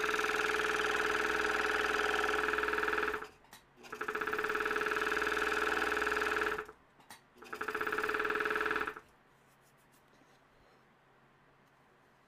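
Scroll saw running with its blade going up and down while a thin strip of wood is held lightly against it to shave off bumps. It runs in three spells of a few seconds, stopping briefly twice, and falls quiet about nine seconds in.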